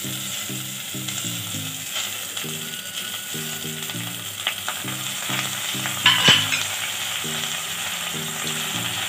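Soaked basmati rice poured into hot oil and fried onions in a thin steel pot, setting off a steady sizzle as the wet grains hit the oil. Sharp knocks come around six seconds in.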